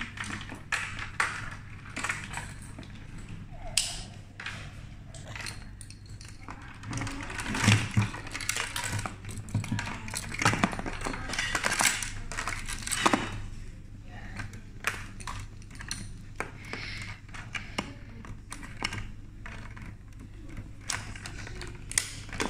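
Hands handling a plastic toy crate: irregular clicks, taps and rattles of hard plastic parts, busiest a few seconds in, then the jangle of a plastic chain and padlock being fitted.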